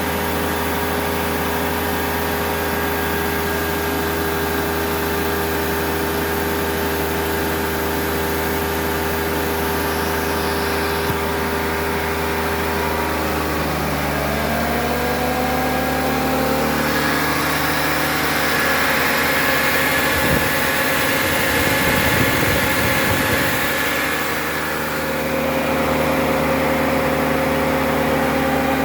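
BMW E39's M52TU straight-six engine idling steadily. About 13 seconds in, a whine rises in pitch and then holds steady over the idle.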